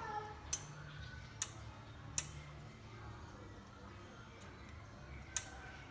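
Four sharp, separate clicks, irregularly spaced with a gap of about three seconds before the last one, like hard tools or plastic parts being handled or snapped during repair work on an electric kettle.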